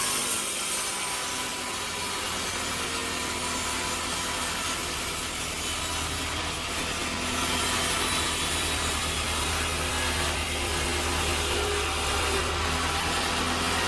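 Sawmill saw cutting through a log: a continuous rasping cut over a steady low machine hum, a little louder from about halfway in.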